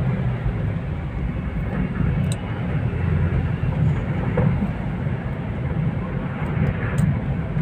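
Steady in-cabin driving noise of a Toyota Avanza with a 1.3-litre straight-four: a low engine and road rumble with tyre hiss, unbroken and without a rise or fall in pitch.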